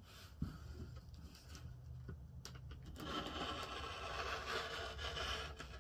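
Rotary cutter rolling through fabric along a ruler on a cutting mat: a light click, then from about halfway in a steady scratchy cutting sound lasting nearly three seconds.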